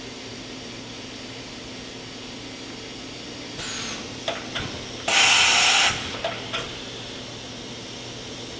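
Automatic tool change on a Hardinge VMC 1500 XP3E vertical machining center: a few sharp mechanical clicks and clunks, then a loud burst of hissing air lasting under a second, then more clicks. A steady machine hum runs underneath.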